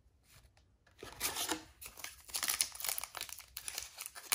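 Foil wrapper of a trading-card pack crinkling and tearing as it is opened by hand, a run of crackly rustles starting about a second in.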